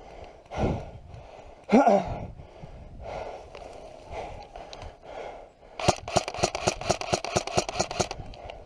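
Airsoft gun firing a full-auto burst of about two seconds near the end, a rapid, even string of sharp clicks about ten a second. Earlier, a heavy breath or grunt from the player.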